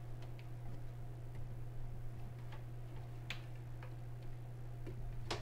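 Scattered small plastic clicks and taps as RO tubing is handled and worked into a push-in T fitting, a handful over several seconds, the sharpest about three seconds in and another near the end, over a steady low hum.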